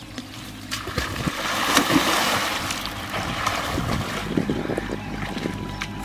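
Water splashing and sloshing as a man plunges into a pond: the noise swells from about a second in to a loud splash at about two seconds, then keeps churning as he moves through the water.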